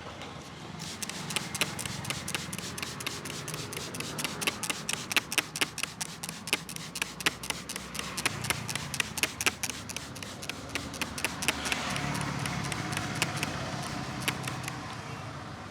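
Rapid hand taps and slaps of a barber's head massage, about four or five a second, starting about a second in and thinning out near the end.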